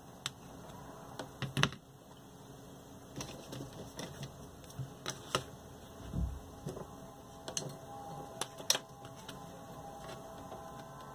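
Scattered light clicks and taps of drafting tools on paper over cardboard: a compass marking arcs to bisect a line, then a plastic protractor set down and shifted into place.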